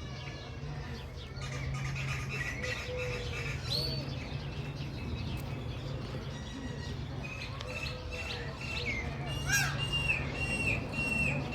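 Many birds chirping and calling. From about two-thirds of the way in, one bird repeats a short falling call about twice a second.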